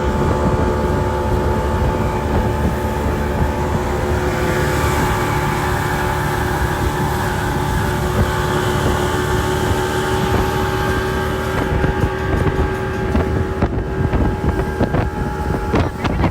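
Motorboat engine running steadily under way, with wind buffeting the microphone. From about twelve seconds in, a run of sharp knocks and thumps.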